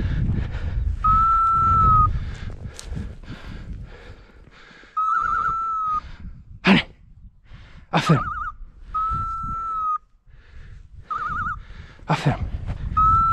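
Electronic beeper collar on a pointing dog sounding a repeated high tone, alternating a quick warble with a steady beep every couple of seconds, as the dogs hold point. A few brief, sharp noises cut in near the middle and near the end, and there is low rumbling noise at the start.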